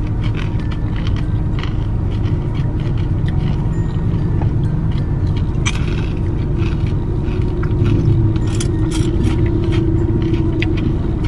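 Car cabin noise while driving: a steady low rumble of engine and road, with a hum that rises slightly about two thirds of the way in, and small clicks and rustles scattered throughout.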